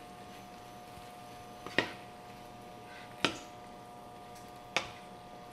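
Wooden spoon knocking against a nonstick skillet while stirring diced vegetables: three sharp clicks about a second and a half apart, over a faint steady hum.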